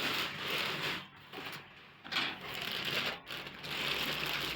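Rustling and crinkling of plastic packaging being handled while a sewing machine's accessories are unpacked, with two short pauses.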